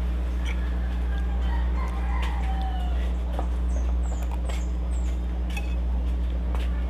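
A rooster crows once, about two seconds in, over a steady low hum. Small birds chirp briefly now and then, and a spoon and fork click against a plate.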